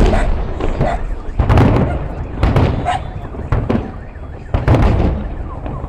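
Aerial fireworks salute: about five firework shells bursting roughly a second apart, each a loud boom trailing off into a rumbling echo.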